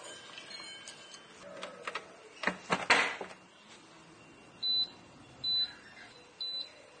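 Vienta New Smart Cooker's lid shut with a quick clatter of clacks, then its control panel gives three short high beeps a little under a second apart as its touch buttons are pressed to choose the cooking menu.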